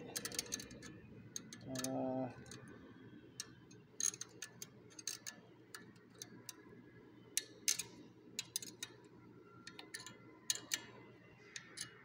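Irregular sharp metallic clicks and ticks of an open-end wrench working a nut on the threaded mounting bolt of a fire-valve tamper switch, tightening it a little.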